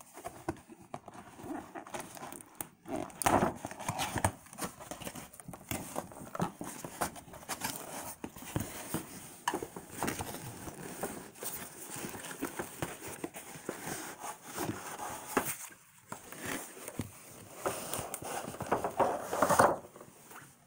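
Cardboard gift box being opened and its clear plastic window film handled: irregular crinkling, crackling and scraping with scattered light taps, and a longer, louder stretch of rustling near the end.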